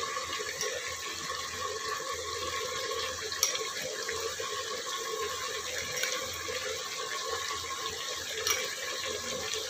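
Steady sizzling hiss of mutton frying dry in its own juices in an open aluminium pressure cooker over a gas flame, with a couple of faint ticks.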